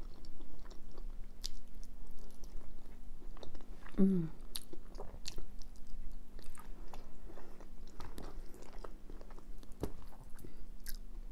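Close-miked chewing and biting of soft chilli cheese fries, with wet mouth clicks and smacks throughout. A short falling tone comes about four seconds in, over a steady low hum.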